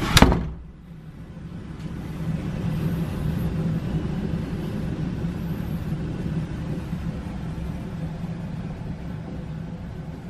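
A door bangs shut just after the start, followed by a steady low rumble that swells over the next couple of seconds and then slowly fades.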